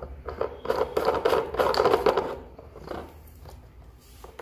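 Plastic clicks and scraping as a garment steamer's removable water tank and its screw cap are handled and the tank is lifted out of the base. The noise is busiest in the first half and dies down to faint handling after about two and a half seconds.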